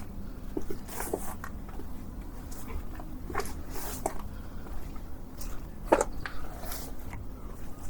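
Footsteps walking: irregular taps and scuffs, the sharpest about six seconds in, over a steady low background rumble.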